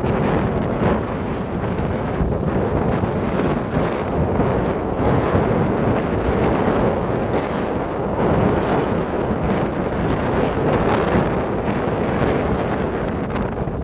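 Strong wind blowing over the microphone, a steady rumbling rush, with breaking sea waves beneath it.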